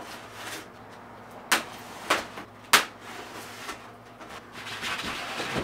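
A blade cutting packing tape on a styrofoam shipping cooler: scraping and rustling, with three sharp clicks about a second and a half, two, and nearly three seconds in, and more foam-and-tape rustling near the end.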